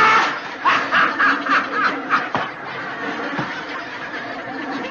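A man laughing hard in a quick run of short bursts for about a second and a half, then quieter laughter continuing.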